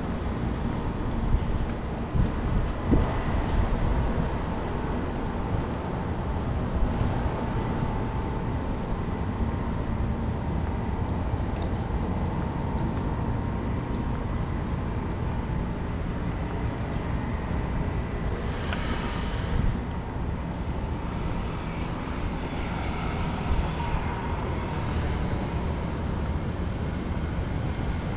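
City street ambience: a steady low rumble of road traffic, with a brief louder hiss about 19 seconds in.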